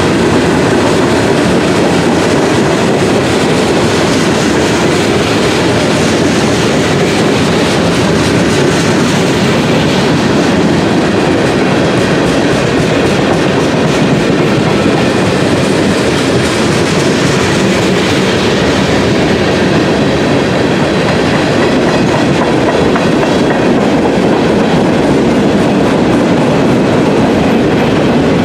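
Train cars rolling past at close range: a steady loud rumble of wheels on rail with a running clickety-clack over the joints.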